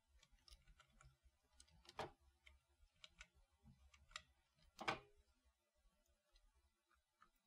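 Faint clicks from a computer keyboard and mouse, with two louder clicks about two and five seconds in.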